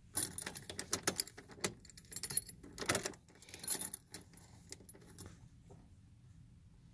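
A bunch of keys jangling at the ignition: a dense run of clinks for about four seconds, then a few fainter ones. No engine is running.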